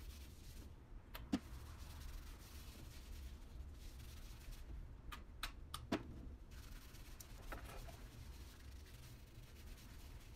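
Faint rubbing and handling noise of a gloved hand working hair toner through short bleached hair, with a few soft clicks: one about a second in and a quick run of four a little past the middle, over a steady low hum.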